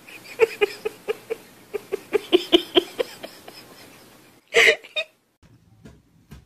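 A cat chattering: a quick run of short chirps, about five a second, for about three seconds while it stares up at something out of reach. A brief loud sound follows about four and a half seconds in.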